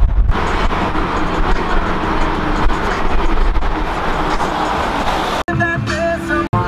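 Steady road and wind noise with a low rumble, as from a moving car. It cuts off abruptly near the end, where about a second of a different, voice-like sound is spliced in.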